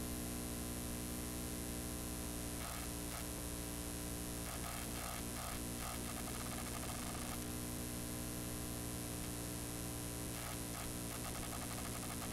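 Steady hiss of blank videotape noise over a low mains hum with its overtones, with faint irregular crackling in the middle.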